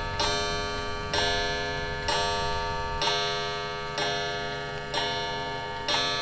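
A bell striking seven times, about once a second, each stroke ringing on and fading before the next.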